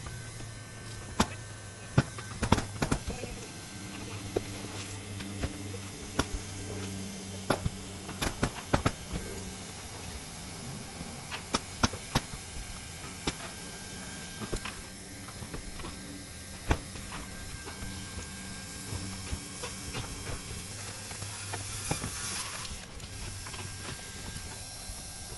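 Scattered sharp clicks and knocks of a roofer's tools during hand work on a low-slope roof membrane, some much louder than others. A steady low hum runs through the first half and fades, and a short hiss comes near the end.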